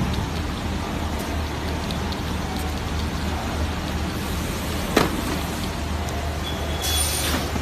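BSD4520 shrink-wrap tunnel running: a steady low hum and whir from its heater blower and roller conveyor. A sharp click comes about five seconds in, and a rush of hiss near the end.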